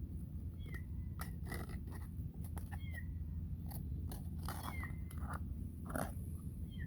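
A kitten mewing in short high calls, about five times, among scattered clicks, over a steady low hum.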